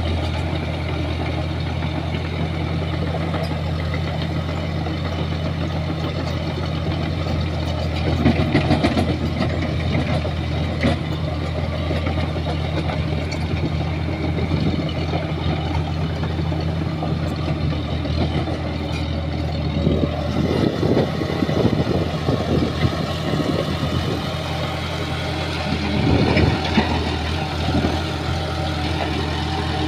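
Shantui bulldozer's diesel engine running at a steady note, with stretches of rougher rumbling and clatter about a third of the way in and twice more in the last third.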